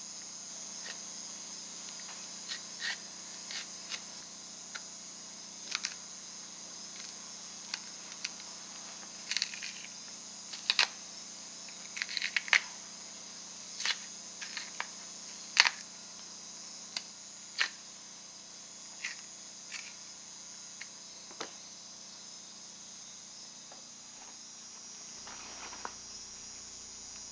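A steady, high-pitched chorus of crickets and other insects, with a dozen or so irregular sharp clicks and taps scattered through it. The clicks come thickest and loudest in the middle.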